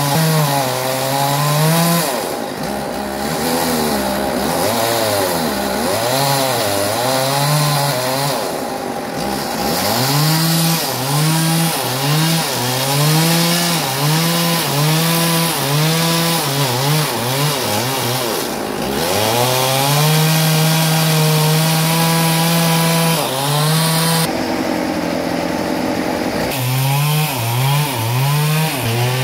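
Two-stroke Stihl chainsaw cutting into a large, dry tamarind log. The engine note rises and sags over and over as the chain loads up in the wood, and it drops sharply a few times before picking up again.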